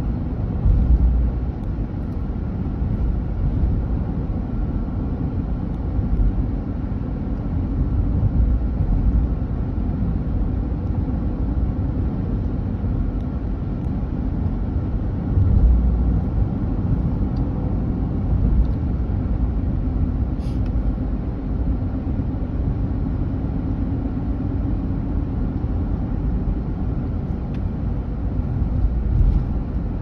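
A car's road and engine noise heard from inside the cabin while driving: a steady low rumble with a hiss of tyres and wind on top.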